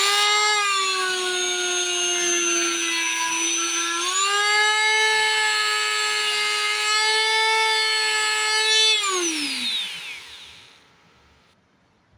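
Small handheld electric power tool motor running at high speed. It runs steadily, steps up slightly in pitch about four seconds in, then winds down with a falling pitch near the end.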